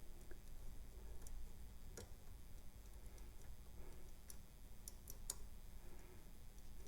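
A few faint, scattered metallic clicks of a bent-wire pick working the springy levers inside a chrome-plated brass lever padlock, held under tension with a modified key.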